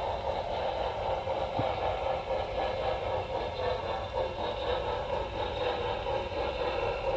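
Model train running steadily along its track, heard from a camera riding on it: a continuous hum of the motor and the wheels rolling on the rails.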